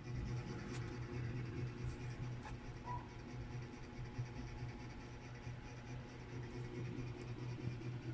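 Soft scratchy rustling of dry breadcrumbs as fingers roll a batter-dipped cheese stick in them, with a few small clicks, over a steady low hum.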